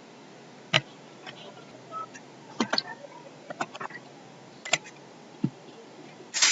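Sparse, irregular clicks and taps of a computer mouse and keyboard.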